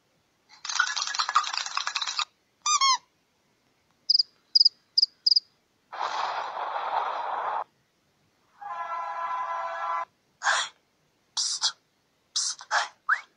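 A string of short canned sound effects from an Android sound-effects app, one after another with gaps between: a hissing burst, a few quick falling chirps, four short high beeps, another hissing burst, a buzzing tone, then a run of quick whistle-like sweeps near the end.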